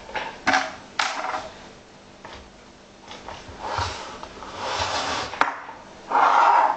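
Salt being poured into water in several hissing rushes, among clicks and knocks of containers being handled; the loudest rush comes near the end.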